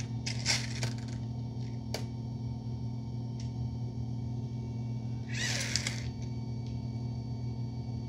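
Roborock Saros Z70 robot vacuum with its arm stowed, giving a steady low motor hum with a few light clicks and a brief whirring squeal about five seconds in. Its electric hatch is failing to close because crumpled paper is caught on the lid.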